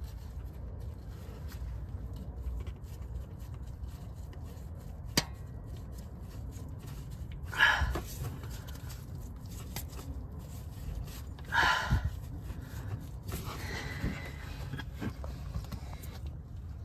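Hand work on an engine: a sharp metallic click about five seconds in and two short scraping rustles near the middle, over a steady low background hum.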